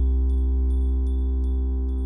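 Background ambient music: a steady low drone with sustained tones and light, bell-like chime pings every few tenths of a second, slowly getting quieter.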